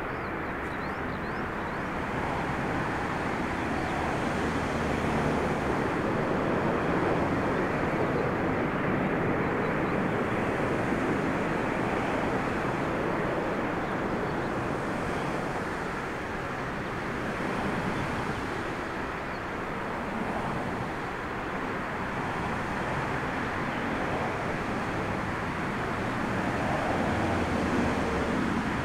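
Jet engines of an Airbus A320-family airliner running during its landing rollout on a wet runway: a steady rushing noise that swells and eases slightly, mixed with gusty wind on the microphone.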